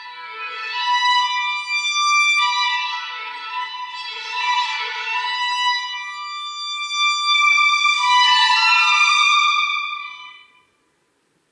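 Violin played live: a slow melody of long, held bowed notes that falls silent near the end.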